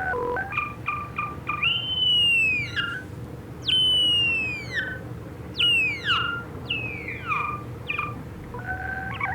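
Modular synthesizer playing an improvised line: short pitched blips in quick succession, then several long gliding tones that each fall about an octave over about a second.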